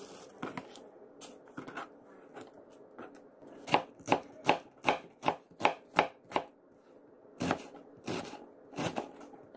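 Kitchen knife chopping an onion on a plastic cutting board: a few faint cuts, then a quick run of about eight, about three a second, then a few slower ones near the end.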